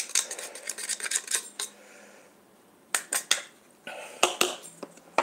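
Handheld spiralizer being twisted through a courgette: quick clicking and scraping of the blade and plastic, in three short spells with pauses between.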